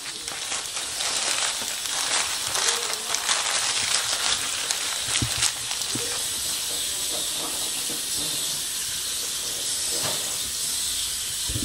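Paper sandwich wrapper crinkling and rustling in hands over a steady hiss. The crinkles die away about halfway through, and the hiss softens slightly near the end.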